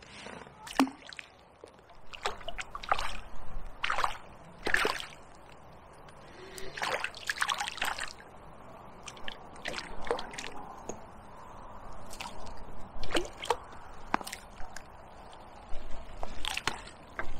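Canal water splashing and sloshing in short, irregular bursts.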